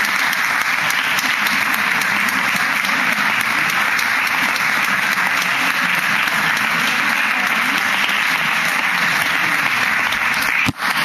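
Audience applauding steadily, with a momentary break near the end.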